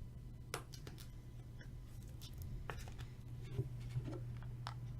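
Faint scattered clicks and light rustles of trading cards being handled, over a low steady hum.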